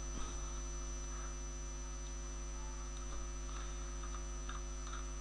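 Steady electrical mains hum with its evenly spaced overtones, plus a faint steady high whine.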